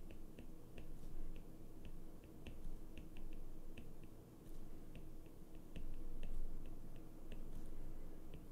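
Stylus tip tapping and clicking on a tablet's glass screen while words are handwritten: short, sharp, irregular ticks, about two to four a second, over a steady low hum.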